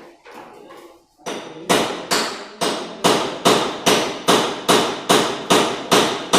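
Steady hammering: a few light knocks, then from about a second in a run of about a dozen even, ringing blows, roughly two and a half a second.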